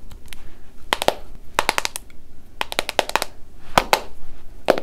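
Long press-on fingernails tapping on a smartphone screen while typing: quick runs of sharp clicks with short pauses between.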